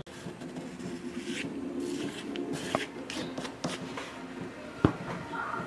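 Knife chopping and scraping garlic cloves on a cloth-covered table: short scrapes and light taps, with a sharper knock near the end, over a faint steady hum.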